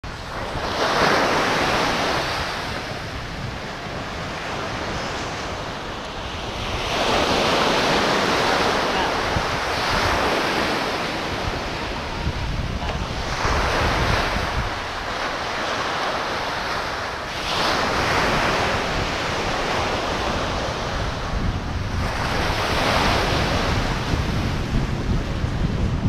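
Ocean surf breaking on the beach, the wash swelling and fading about every five to six seconds, with wind buffeting the microphone.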